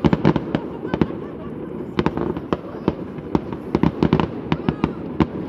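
Fireworks display: a rapid, irregular string of bangs and crackling pops, several a second.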